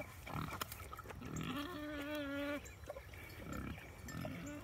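Pig vocalising: one drawn-out, pitched grunt lasting about a second near the middle, with a few softer short sounds around it.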